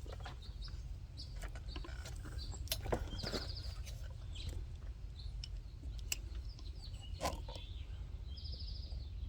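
Faint scattered clicks and taps of handwork on a car door, over a low steady hum. A short high bird trill sounds twice, about three seconds in and again near the end.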